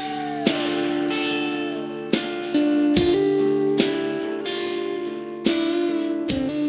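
Background music: plucked guitar notes and chords ringing over a steady held tone.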